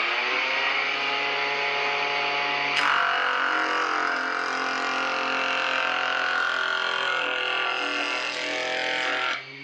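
Homemade electric jointer planing a wooden bar: the cutterhead noise of the cut rides over the steady hum of the motor. The cut turns harsher and brighter about three seconds in, then stops just before the end, leaving the motor running on its own.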